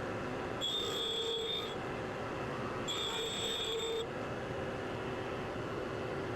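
Tool grinder running steadily while a small carbide-shank boring bar is ground for clearance, with two high-pitched grinding squeals of about a second each, about half a second in and again about three seconds in.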